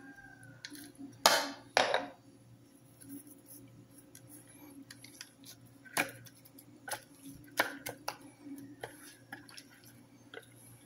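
Hands handling seasoned raw fish on a plate: two louder scraping noises about a second and a half in, then a scatter of sharp clicks and knocks of the plate, over a faint steady low hum.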